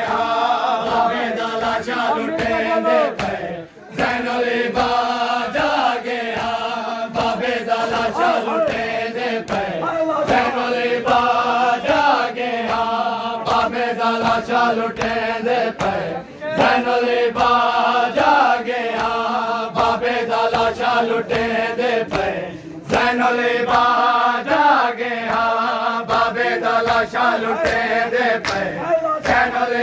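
A group of men chanting a noha (mourning lament) in unison, over an even beat of hands striking bare chests in matam. The chant breaks briefly between lines, about 4, 16 and 23 seconds in.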